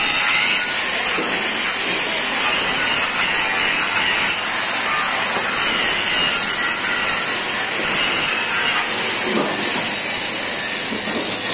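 Electric arc welding on a steel beam frame: a steady sizzling hiss from the arc that carries on without a break.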